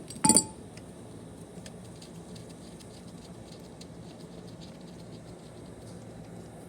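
A single sharp metallic clank with a brief ring near the start, then faint scattered clicks and taps of bolts and hand tools being handled over a steady low hum.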